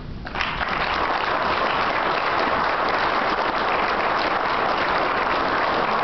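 Audience applauding, breaking out about a third of a second in and going on steadily.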